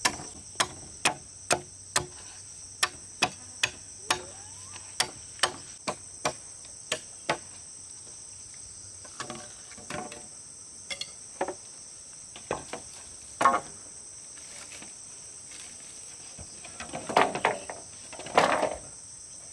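Sharp knocks, evenly paced at about two a second for the first seven seconds, then scattered, with a louder cluster near the end, over a steady high-pitched insect drone.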